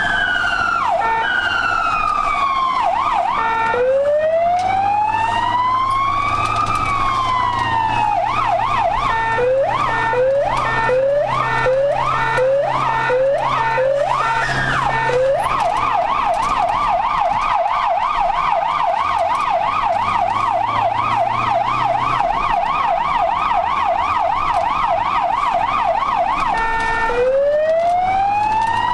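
Ambulance siren heard from inside the cab. It starts as a slow rising and falling wail, switches about eight seconds in to a faster yelp, and a few seconds later to a rapid warble of roughly three to four sweeps a second. Near the end it goes back to the slow wail.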